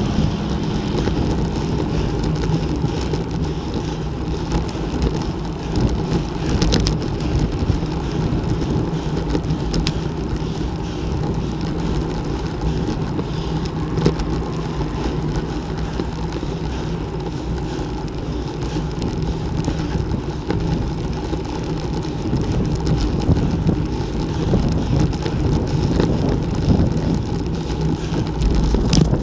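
Steady wind rush on the microphone of a road bike's mounted camera at cycling speed, with tyre noise on a concrete road and a few light clicks.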